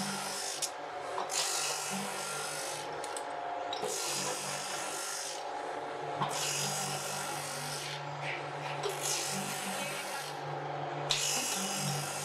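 Electric abrasive wheel with a steady motor hum, grinding the friction lining of motorcycle brake shoes pressed against it one after another: a rasping grind a second or so long, repeated about six times with short breaks between passes.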